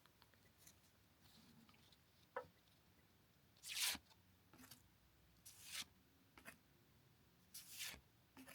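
Faint rustle of Pokémon trading cards being slid off the stack one at a time: three brief swishes about two seconds apart, with a small click before the first.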